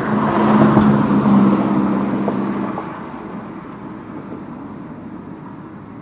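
A motor vehicle's engine passing by: its steady hum grows louder over the first second or so, then fades away by about three seconds in.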